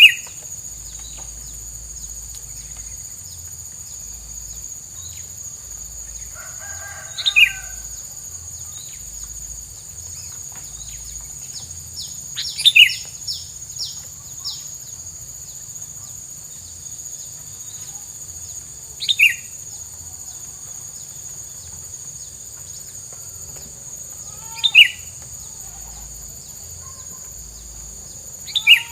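Tilang songbird calling: short, loud, sharp notes that slide down in pitch, one call or a quick cluster every five to six seconds. A steady high whine, like insects, runs underneath.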